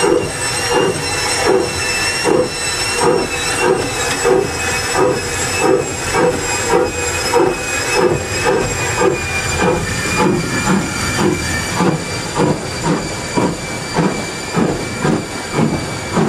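Steam locomotive working hard, heard from the footplate: a regular exhaust chuff that quickens as the engine gathers speed, over a steady high hiss of steam in the cab.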